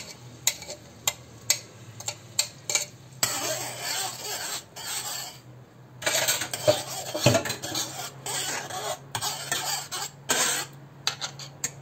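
A metal spoon clinking against a stainless steel frying pan several times, then stirring and scraping through grated onion in melted butter as it starts to sauté, in stretches that stop and start.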